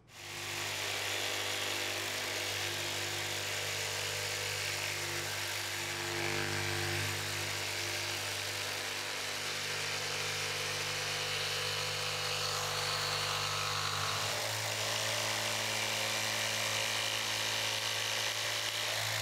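Jigsaw running and cutting through plywood, a steady buzz of the reciprocating blade that changes tone about fourteen seconds in.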